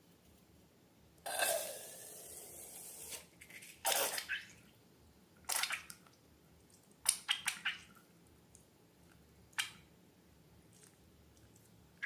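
Wet slime-making sounds: a hissing pour lasting about two seconds, then a handful of short squelches and drips as the liquid and slime are handled.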